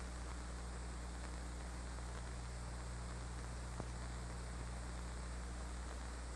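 Steady hiss and low electrical hum of an old film soundtrack, with one faint click a little past halfway; no drilling or other action sound is heard.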